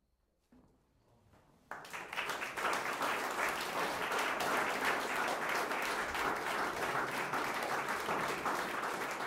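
Audience applauding, breaking out suddenly about two seconds in after a short hush, then clapping steadily.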